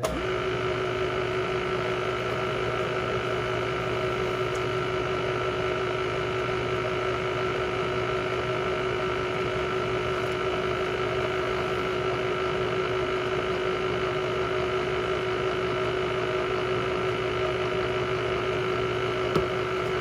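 Bridgeport milling machine running steadily in low range at its slowest spindle speed, a constant hum with a steady whine, as the spindle turns in reverse to back a spiral-fluted tap out of a freshly tapped hole in cast bronze.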